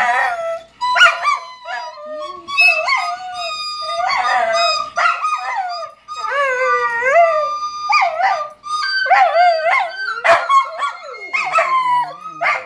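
Dogs howling along to a recorder being played, their wavering, rising and falling howls over the recorder's held notes, broken by short sharp barks and yips.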